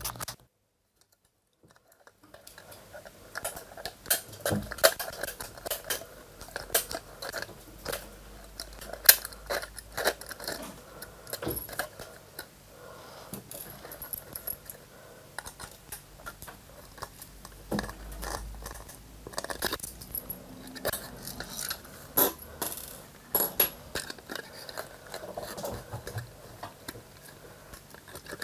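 Scattered small clicks, taps and scrapes of hands and a screwdriver working on the plastic housing and circuit boards of a Wi-Fi repeater as its power board is unscrewed. A short silence opens it, and the clicking starts about two seconds in.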